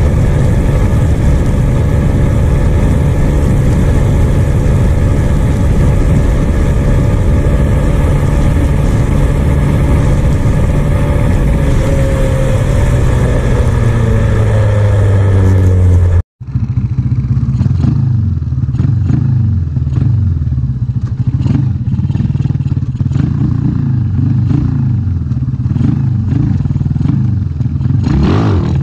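Honda EX5 single-cylinder four-stroke engine running hard at high revs on a top-speed run, with wind rush. The revs sag somewhat past the middle. After a brief break, the engine revs rise and fall over and over, as through gear changes.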